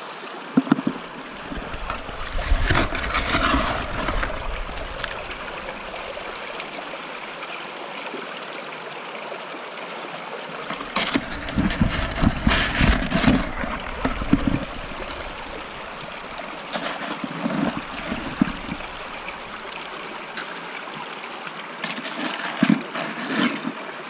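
Stream water rushing steadily through an aluminium gold sluice box. Several spells of scraping and splashing come through it as gravel is scooped out of a bucket with a hand scoop and fed into the sluice. The loudest spell is about halfway through.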